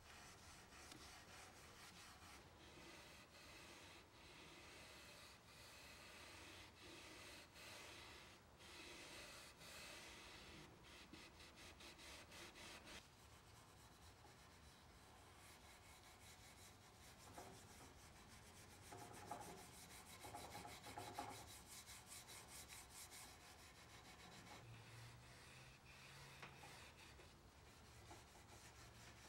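Faint scrubbing of a steel wool pad rubbed back and forth along a finished wooden table leg, quick repeated strokes that are busiest in the first half.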